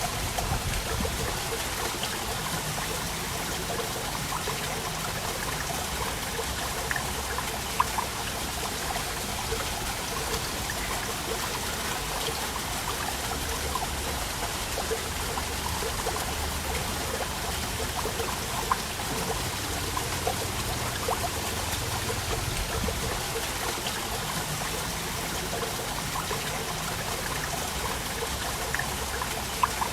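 Waterfall: water splashing and trickling steadily, with many small drips and splashes.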